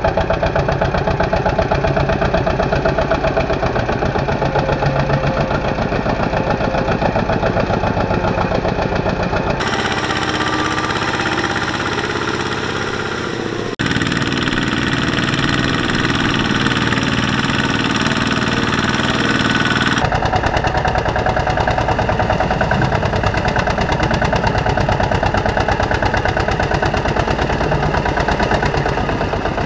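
Single-cylinder diesel engines of two-wheel walking tractors chugging steadily as they haul loaded trailers through paddy mud. The tone changes abruptly three times, where one take cuts to the next.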